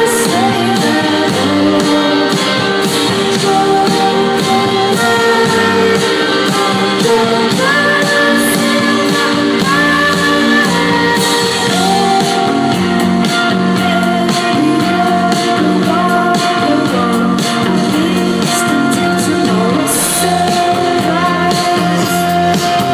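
Live band playing: a woman singing lead over electric guitar, drums and keyboard, at a full, steady level.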